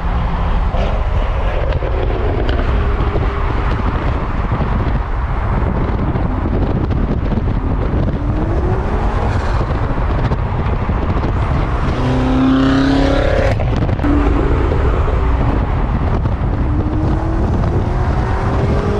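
Loud car engines and exhausts revving and accelerating past on the road, the engine note climbing in pitch several times. The loudest is a strong high-revving engine a little past the middle.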